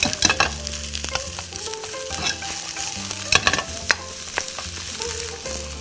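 Vegetables sizzling as they are stir-fried in a wok over a gas flame. A wooden spatula scrapes and knocks against the pan several times as it tosses them.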